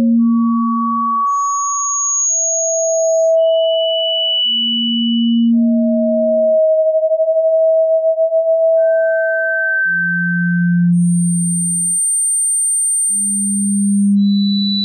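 A sequence of pure sine tones, each held about two seconds and fading in and out, overlapping two at a time as the pitch jumps between low hums and high whistles. Around the middle two nearly equal tones overlap and give a fast wobble. These are tinnitus-relief sound-therapy tones.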